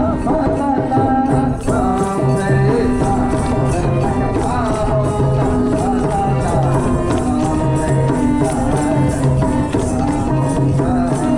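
Odissi music accompanying a Gotipua dance: a barrel drum keeps a repeating beat under a held, winding melody, with jingling percussion on top.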